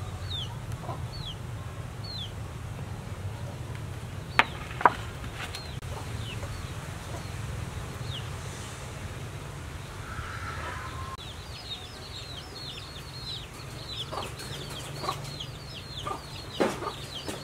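Chicks peeping in short, high, falling chirps, scattered at first and then in a quick run a little past the middle, over a low steady hum. Two sharp clicks half a second apart, about four seconds in, are the loudest sounds.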